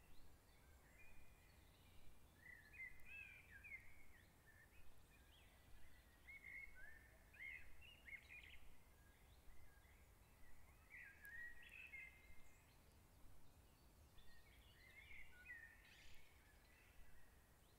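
Faint small birds chirping in short, repeated phrases over a low background rumble.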